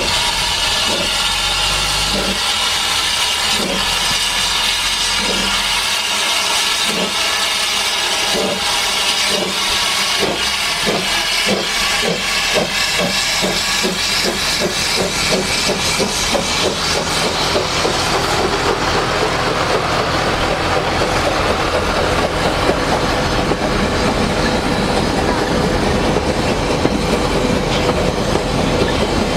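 An 1863 George England narrow-gauge steam locomotive pulling away: its exhaust beats start about one a second and quicken steadily over hissing steam. By halfway they run together, and the carriages roll past with wheel clatter.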